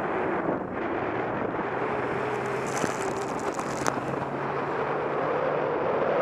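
A four-wheel drive running along a wet beach, with wind buffeting the side-mounted microphone over the engine and tyre noise. Midway there is a burst of hissing spray as the tyres cut through shallow water. Near the end the hum rises a little in pitch.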